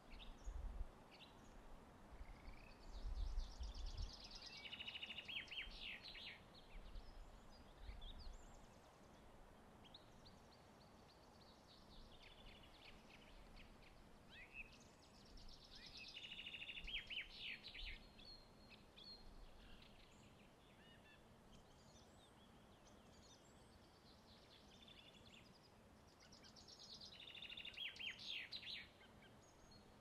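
Faint songbird song: a short, fast trilled phrase that falls in pitch, repeated several times with pauses of several seconds between, over quiet forest ambience.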